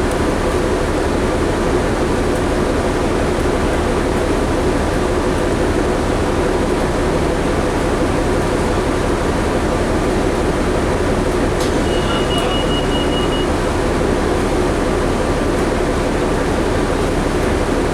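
Cabin noise inside a 2011 New Flyer D60LFR articulated diesel bus under way: steady engine and road noise with a constant hum. About twelve seconds in, a click and then a short high-pitched beep.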